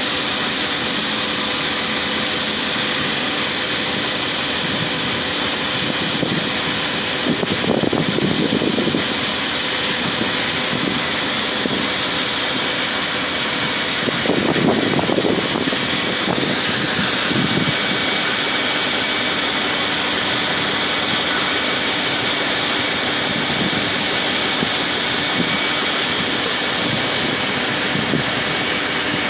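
Harvest machinery running steadily, a continuous engine and fan noise with a constant high whine. Two brief, slightly louder low rumbles come about eight and fifteen seconds in.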